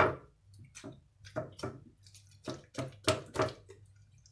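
Kitchen knife stabbed again and again into a raw whole chicken: about eight short jabs, the first one the loudest.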